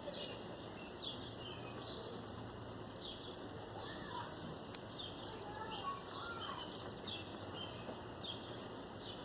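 Small birds singing, with fast high trills and repeated short down-slurred chirps, over a steady background of outdoor noise.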